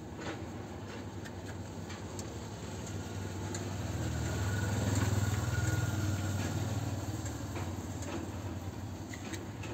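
A vehicle engine running nearby, its low hum swelling to its loudest about five seconds in and then fading, with a few faint clicks from a timing belt being worked onto its sprockets by hand.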